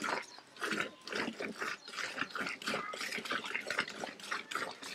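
Milk squirting into a steel pail as a cow is hand-milked from both sides, in regular spurts about three a second.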